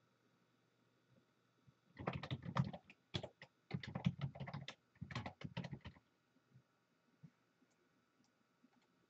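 Typing on a computer keyboard: a quick run of key clicks in a few groups, starting about two seconds in and stopping about four seconds later.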